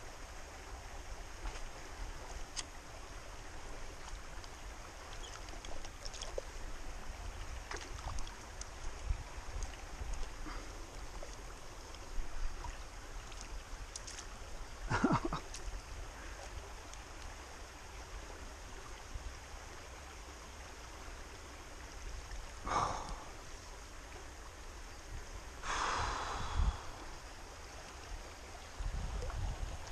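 A hooked chub splashing at the surface as it is played on a fly rod and drawn into a landing net, over the steady rush of a small stream. A few short splashes stand out, the loudest about halfway through and another near the end.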